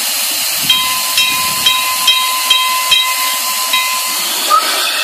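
Steam hissing steadily as it is let out of a homemade steam-locomotive smoker for its steam cylinders. In the middle, a short ringing sound repeats about seven times, roughly twice a second.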